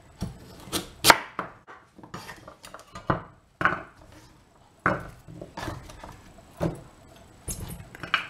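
A knife cutting a carrot into chunks on a wooden chopping board: a string of sharp, irregular knocks a second or so apart.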